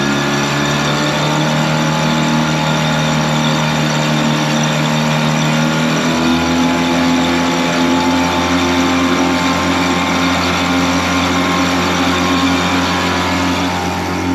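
Suzuki 9.9 hp kicker outboard running at raised throttle with the boat under way. It makes a steady engine note whose pitch rises a little about six seconds in.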